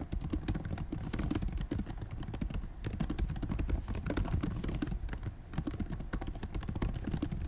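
Rapid typing on a computer keyboard: a dense run of key clicks, with two short pauses about two and a half and five and a half seconds in.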